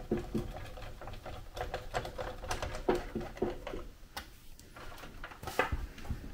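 Irregular light clicks and taps of small CPU-cooler mounting parts (mount bars, risers and screws) being handled and fitted onto a motherboard, with a louder knock near the end.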